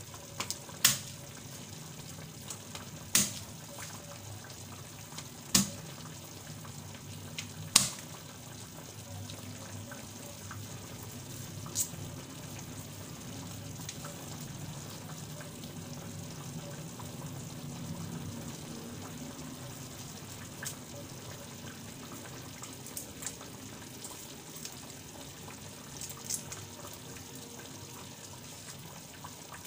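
Pan of milkfish and eggplant in vinegar and oil cooking on the stove: a steady bubbling hiss with sharp pops, five loud ones in the first twelve seconds and fainter ones later.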